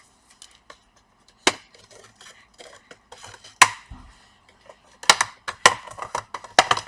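Plastic clips of an Asus GL552 laptop's casing snapping loose as it is pried apart with a sharp tool: single sharp clicks about a second and a half and three and a half seconds in, then a quick run of several toward the end.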